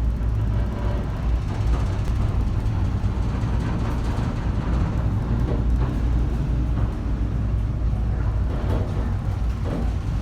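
Steady low rumble with a continuous rushing noise: wind and heavy seas heard aboard a ship in a storm.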